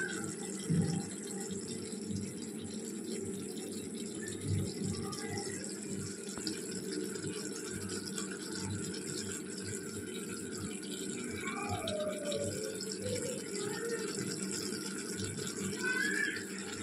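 Marinated chicken with onions and tomatoes simmering in its juices in an iron kadai on a gas burner: a steady bubbling hiss, with a couple of low knocks about a second in and near five seconds.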